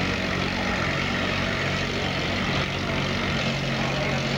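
Antique farm tractor engine idling steadily at the pulling sled, a low even drone.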